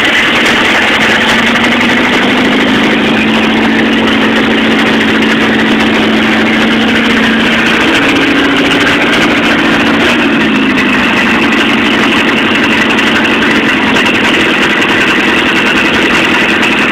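1964 Volkswagen Beetle's air-cooled flat-four engine running loud and steady through a merged (stinger) exhaust with no muffler, just after its first start on the new system. The engine speed shifts slightly about ten seconds in.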